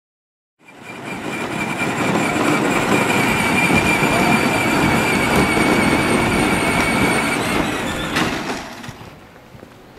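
Battery-powered John Deere Gator ride-on toy driving on asphalt: a steady electric motor and gearbox whine over the rumble of hard plastic wheels. It cuts in suddenly about half a second in and fades near the end as the toy moves away.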